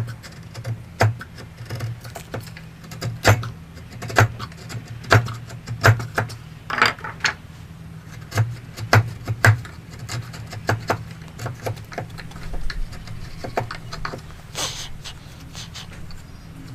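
Hand woodworking: a run of sharp taps and knocks on wood, irregularly spaced at roughly one a second, some in quick pairs, over a low steady hum.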